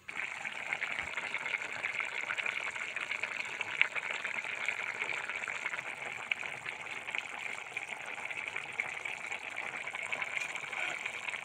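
Thin small-fish curry boiling hard in an open metal pot: a steady bubbling hiss full of fine crackles and pops.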